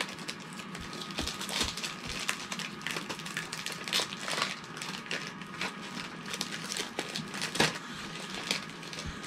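A box of Peeps marshmallow candy being opened by hand: irregular crinkling and crackling of the cardboard and packaging, with scattered clicks and a sharper snap late on.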